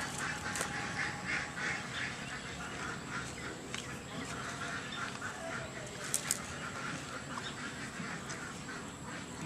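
Animal calls: a steady run of short, clipped calls, a few each second, with a brief sharp click about six seconds in.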